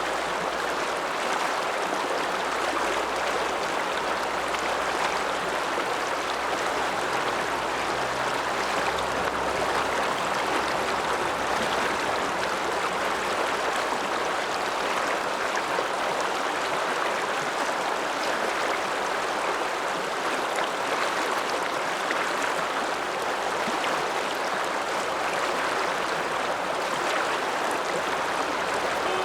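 The Ramsauer Ache, a mountain river, flowing with a steady rushing sound that does not change.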